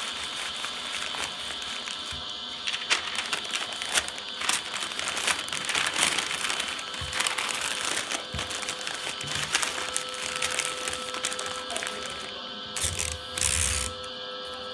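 Newspaper crinkling and crackling as it is wrapped and pressed tight around a balled-paper armature. Near the end, masking tape is pulled off a desk dispenser with a short ripping sound.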